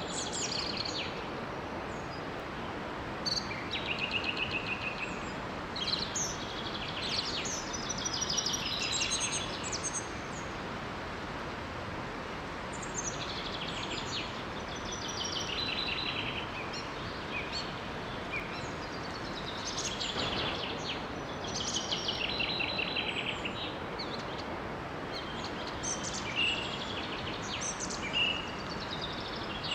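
Several songbirds chirping and singing in short trills over the steady rush of a small waterfall.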